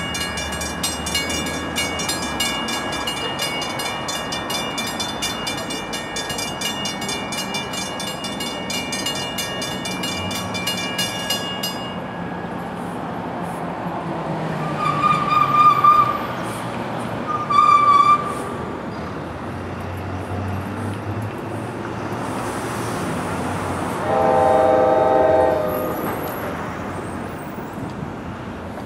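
Commuter train at a station, a low rumble throughout. A bell rings rapidly and stops about twelve seconds in. The train horn then gives two short blasts, and near the end a louder chord lasting a couple of seconds.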